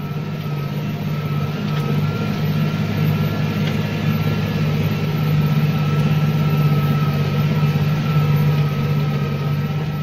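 New Holland T7.235 tractor's diesel engine running steadily at about 2000 rpm under ploughing load, heard from inside the cab, a low hum with a thin steady whine above it.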